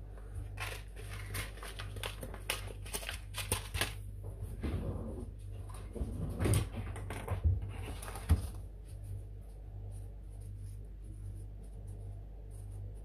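Hands handling biodegradable fibre seed pots and compost: a run of light scratching, rustling and clicks in the first few seconds, then a few dull knocks in the middle, over a low steady hum.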